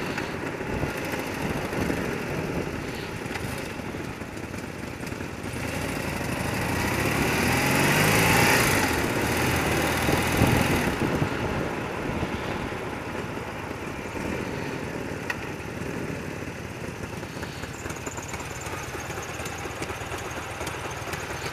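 Motorcycle engine running, heard from the rider's helmet with wind rushing over the microphone. About six seconds in the engine note rises as the bike accelerates and the wind grows loudest, then it eases off into a steadier, quieter running as the bike slows.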